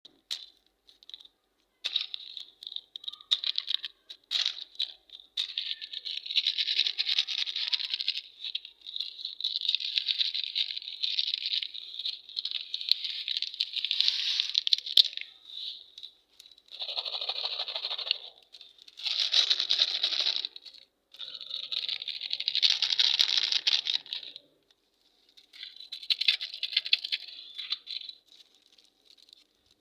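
Candy wrappers crinkling and tearing as they are opened and handled, in irregular bursts of a few seconds each with small clicks between them.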